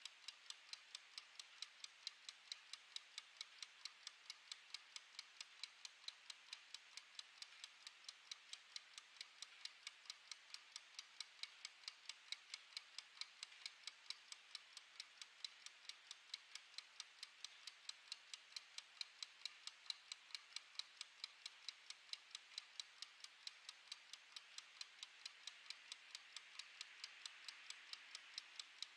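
Mechanical wind-up kitchen timer running down, its clockwork giving a soft, rapid, even ticking, several ticks a second.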